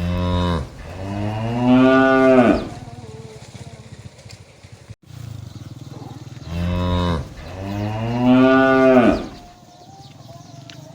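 A cow mooing twice, about six seconds apart; each moo is a short note followed by a longer, louder call that rises and then falls in pitch.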